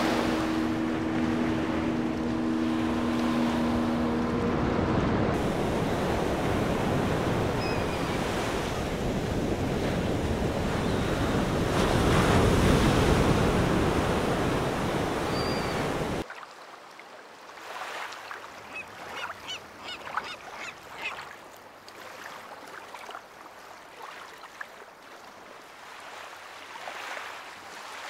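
Surf breaking on a sandy beach, with wind on the microphone. Both are loud and steady, and a low steady hum runs under them for the first few seconds. Past the halfway point the sound cuts suddenly to a much quieter shore, with a run of short bird calls.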